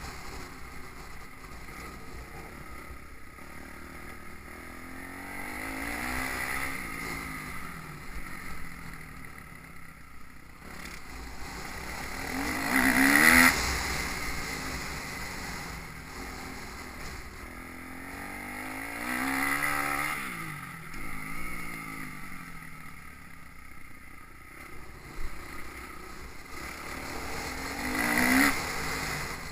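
Motocross bike engines revving hard and easing off again and again, swelling four times, loudest about halfway through and near the end, with wind rumbling on the microphone.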